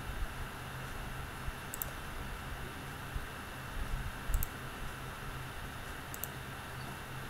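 Computer mouse clicking three times, a couple of seconds apart, each a quick press-and-release pair, over a steady background hiss with a faint hum.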